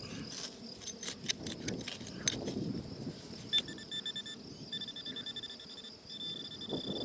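A hand digger clicks and scrapes through soil and small stones. Then a metal-detecting pinpointer, pushed into the hole, buzzes with a high electronic tone in three pulsed bursts, the sign that a metal target lies close by.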